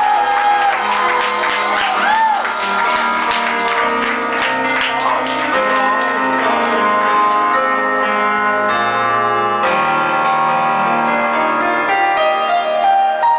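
A singer with keyboard accompaniment. The sung line with its sliding pitches drops out after the first few seconds, and the keyboard carries on alone with held chords.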